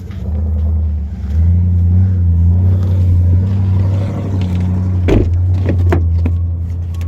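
Low, steady motor rumble from a vehicle running close by, growing louder about a second in. A few sharp knocks come about five to six seconds in.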